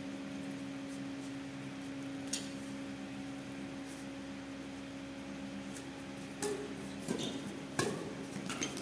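Badminton rackets striking a shuttlecock during a doubles rally: a sharp hit a little over two seconds in, then a quicker run of hits in the last few seconds, the loudest near the end. A steady low hum runs beneath.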